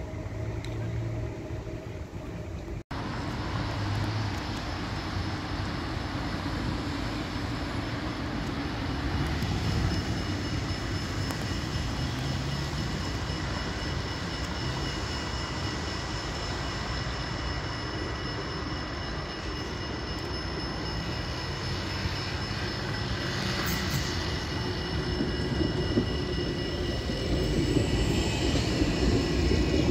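Street traffic, then after a sudden cut a RET tram approaching: a steady high whine made of several tones over running noise, growing louder near the end as the tram draws near.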